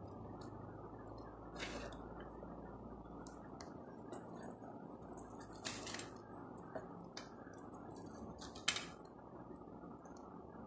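Clear plastic packaging crinkling and rustling as it is handled and pulled off a silicone pop-it bag, with a few louder crackles about 2, 6 and 9 seconds in, over steady background noise.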